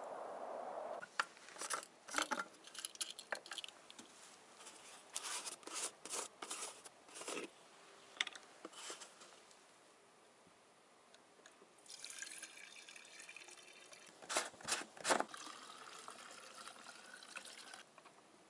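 Plastic bottles and caps being handled, with sharp clicks and knocks. Then, from about twelve seconds in, liquid is poured from a plastic bottle into a container for several seconds, with a few loud clicks partway through and a faint rising tone near the end.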